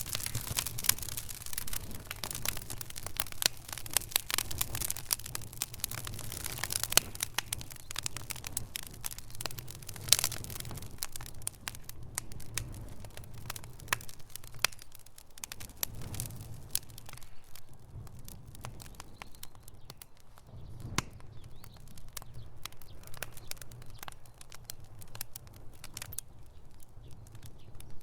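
Campfire crackling, with a dense run of sharp snaps and pops that thins to scattered pops over the second half.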